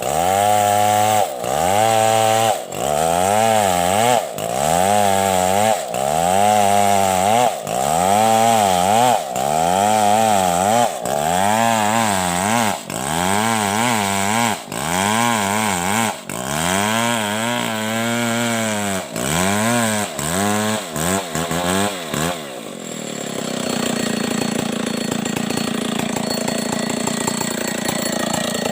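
Stihl 070 two-stroke chainsaw ripping lengthwise through a coconut palm trunk, the engine pitch dipping and recovering about every second and a half as the chain is worked into the wood under load. About 22 seconds in it settles into a steadier, slightly quieter running.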